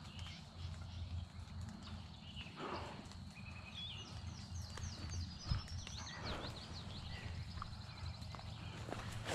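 Songbirds chirping and trilling over a low steady hum, with a couple of short raspy bursts and a single sharp knock about halfway through.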